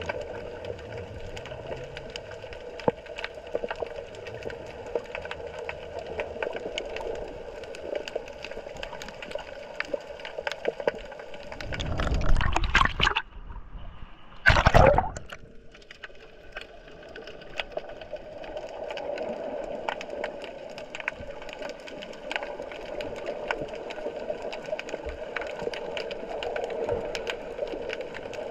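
Underwater sound picked up by a GoPro in its waterproof housing: a steady hum with scattered crackling clicks, broken by two loud rushing surges of water, about 12 and 15 seconds in, as the current moves the camera.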